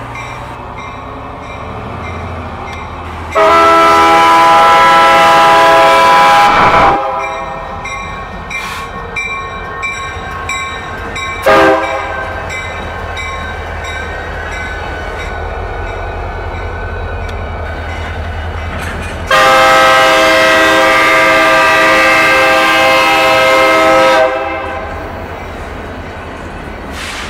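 Diesel freight locomotive's air horn with several chime tones sounding a long blast, a short toot, then another long blast, over the low rumble of the locomotives' diesel engines as they pass slowly. The pattern fits the end of the long-long-short-long grade-crossing signal.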